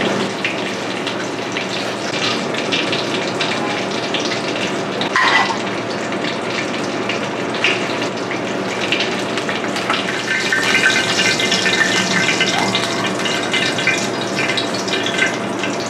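Pans sizzling on a restaurant stove: a steady hiss with scattered crackles, and a few light clinks of utensils on the plate and pan.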